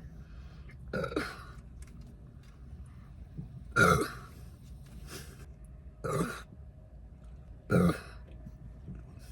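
A young woman burping, four short burps one and a half to three seconds apart.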